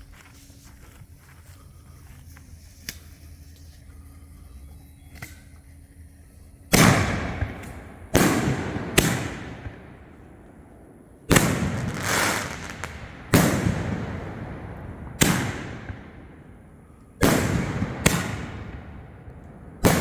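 Consumer firework canister shells going off: after a quiet start, about ten loud booms from about a third of the way in, some in quick pairs, each followed by a long echoing rumble that dies away.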